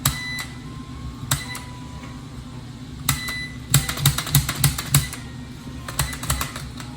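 Sharp clicks and knocks, a few scattered and then a quick run of about six in a little over a second, over a steady low hum.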